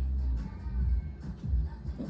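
Background music with a heavy, pulsing bass beat.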